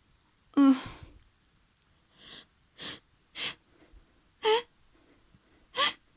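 A woman sneezes about half a second in, then sniffs three times and gives two short, hitching 'ah… ah…' gasps as another sneeze builds from a tickled nose.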